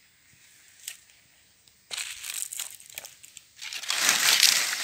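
Dry leaves and twigs crunching and crackling with many sharp clicks, starting about two seconds in and louder for the last second, after a quiet start with one faint tick.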